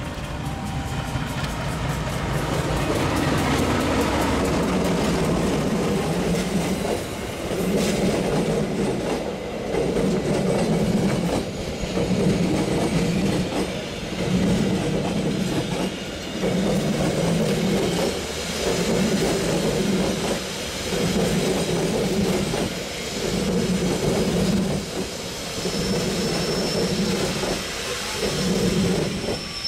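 A diesel locomotive and its passenger coaches pass close by. The engine's rumble builds as it approaches, then the wheels of the passing coaches beat in an even rhythm, one pulse about every second and a half.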